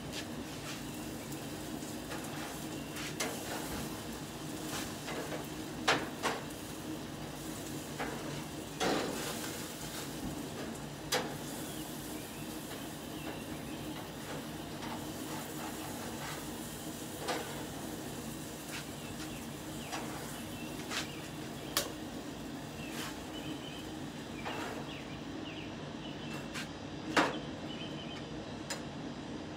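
Scattered knocks and clanks from cooking on a gas grill, utensils against the grate and lid, about nine in all with the sharpest a few seconds in and near the end, over a steady low hum.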